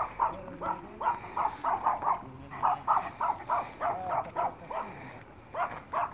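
A dog barking rapidly during play, short sharp barks at about three a second, with a brief pause a little before the end.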